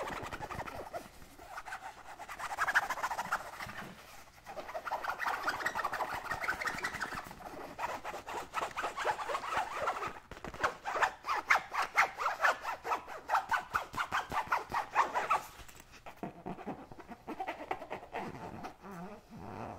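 Fingernails scratching a small zippered fabric case in quick, dense strokes. The strokes come in bouts of a few seconds with short pauses, are loudest about two-thirds of the way through, and turn softer near the end.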